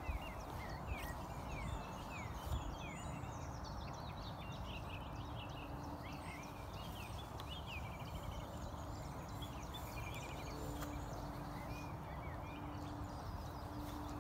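Small birds singing, with many quick chirps and trills, over a steady low outdoor rumble. A faint steady hum comes in about five seconds in and again from about ten seconds.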